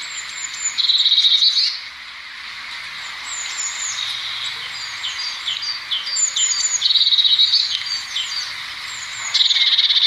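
Eurasian blue tit song: thin, high, descending notes and quick chirps, broken three times by a loud, rapid trill, about a second in, around seven seconds, and near the end.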